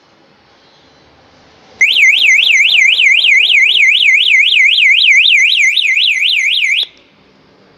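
Aftermarket motorcycle alarm siren fitted to a 12-volt Jawa 634, sounding a fast, loud up-and-down warble at about three to four sweeps a second. It starts about two seconds in, runs for about five seconds and cuts off abruptly.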